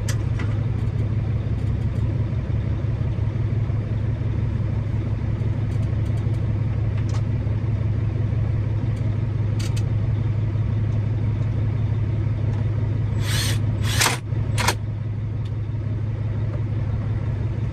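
Truck engine idling steadily, a constant low hum heard inside the cab. About three-quarters of the way through come three short, sharp bursts of noise.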